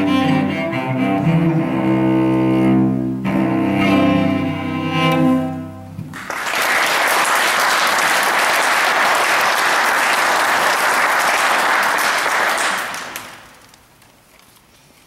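Solo cello playing the closing notes of a piece, which ends about six seconds in. Audience applause follows for about seven seconds and dies away.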